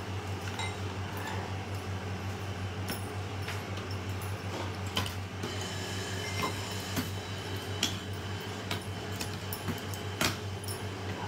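A metal spoon stirring chopped fruit into curd in a glass bowl, giving scattered light clinks and soft scrapes against the glass, over a steady low hum.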